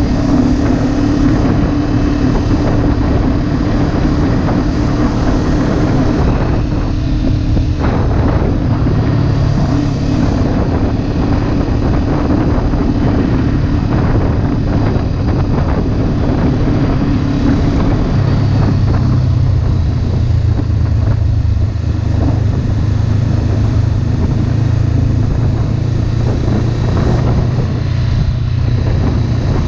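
Honda CB500F's 471cc parallel-twin engine running steadily as the motorcycle is ridden, heard from the rider's helmet. About eighteen seconds in, the engine note drops to a lower pitch and holds there.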